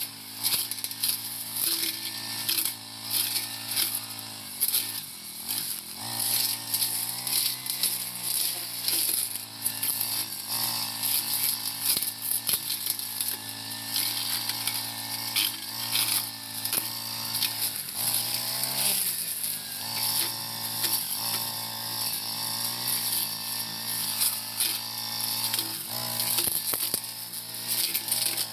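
Four-stroke brush cutter engine running at high revs as it cuts tall brush, its pitch dipping and recovering several times as the blade takes load, with many short clicks over it.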